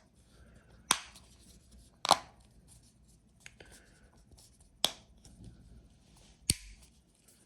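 Plastic halves of a BYD Atto 3 smart key housing being pushed together, its clips snapping into place with four sharp clicks spread over several seconds and a few fainter ticks between.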